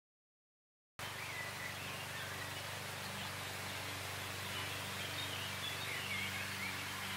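Outdoor ambience: a steady hiss with a low hum under it and faint bird chirps. It cuts in abruptly about a second in, after dead silence.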